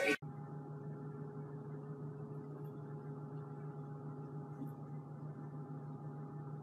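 Steady low hum with a few faint unchanging tones, like an appliance or electrical hum.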